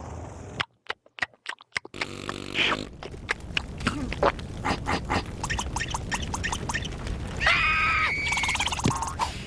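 Cartoon sound effects: after a moment of near silence, a run of sharp crackling clicks that come faster and faster, then a high wavering scream from the cartoon larvae about three quarters of the way through, as the fire flares up.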